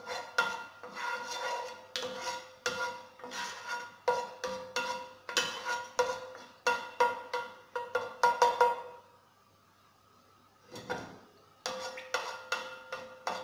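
Wooden spoon stirring in a granite-coated cooking pot, scraping the bottom in repeated strokes, about one or two a second, that set the pot ringing. The stirring stops for a couple of seconds near the end, then resumes.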